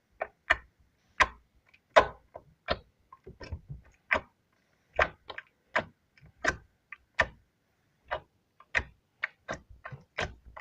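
Slime being squeezed and worked in the hands, clicking: a string of short, sharp, irregularly spaced clicks, about two a second.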